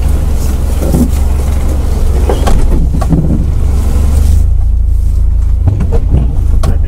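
Subaru Forester's flat-four boxer engine running, heard from inside the cabin as a steady low drone, with a few knocks and rattles from the car working over rough ground.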